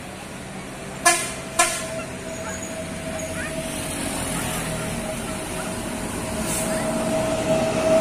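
Tour bus horn: two short toots about a second in, then one long steady horn note that swells as the bus comes close and passes, over the bus's engine.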